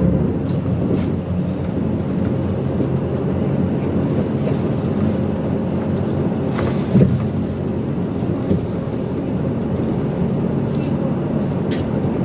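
Cabin noise of a medium-size route bus on the move: the engine hums steadily under road and tyre noise. A short knock about seven seconds in, and a lighter one just after, as the bus goes over a bump.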